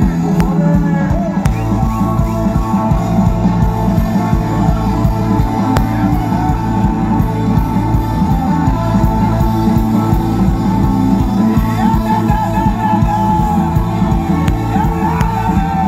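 Live band music in a rock style, playing on without sung words.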